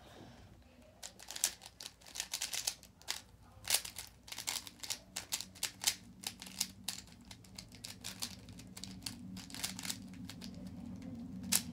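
YuXin Little Magic 3x3 speedcube being turned by hand, its plastic layers clicking irregularly several times a second. The cube has been freshly lubricated, and the turning works the lube in.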